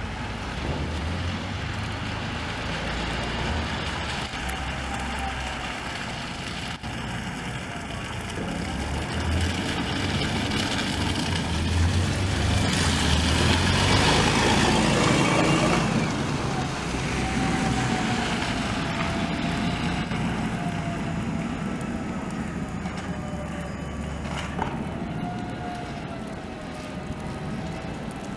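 City bus engines running with a low rumble; about halfway through a bus drives close past, its engine and tyre noise on the wet cobbles swelling to the loudest point and then fading. Through the second half a thin whine holds, wavering a little in pitch.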